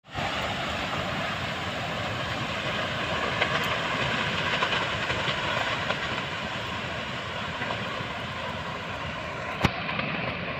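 Tornado wind blowing hard in a steady rushing noise, with scattered clicks and one sharp knock near the end.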